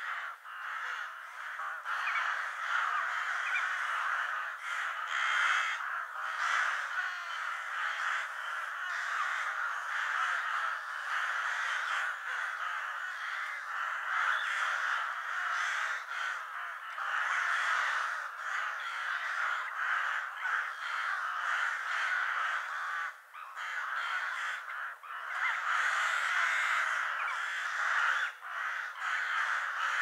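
A flock of crows cawing, many overlapping calls forming a continuous din, with a short dip in the calling about two-thirds of the way through.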